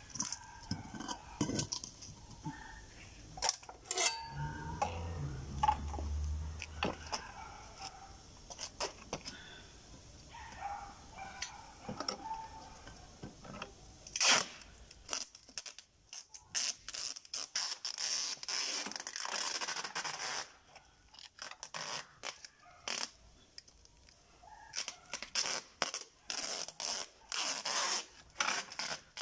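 Knocks and scrapes as a plastic fiber optic splice closure and a concrete block are handled on concrete, with one loud knock about halfway through. After that, packing tape is pulled off its roll in repeated rasping strips as it is wound round the closure and block.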